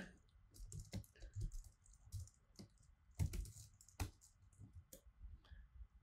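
Typing on a computer keyboard: faint, irregular key clicks.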